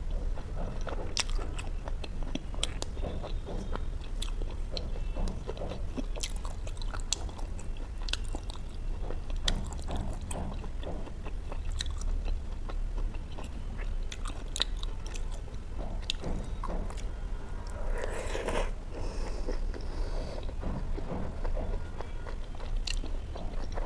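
Close-miked chewing of butter naan and butter chicken: wet mouth clicks and smacks through the whole stretch, with some crunching bites.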